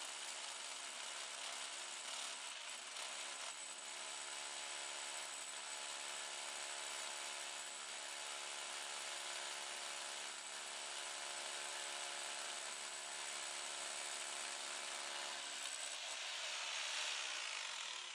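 Hammer drill boring an anchor hole into the concrete floor through the lift post's base plate, running steadily. The sound turns brighter and higher near the end.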